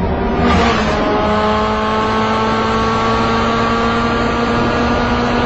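Tank engine sound effect, a steady droning hum held at one pitch, after a brief noisy rush about half a second in.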